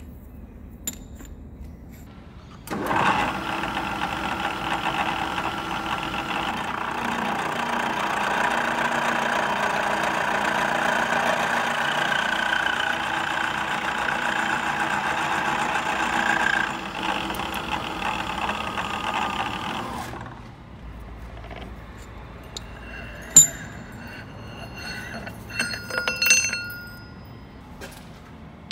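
Hafco BM-63VE milling machine cutting a hex flat into the end of a high-tensile steel bolt. A steady cutting noise with a ringing tone starts suddenly about three seconds in and dies away about twenty seconds in. A few light metallic clinks follow.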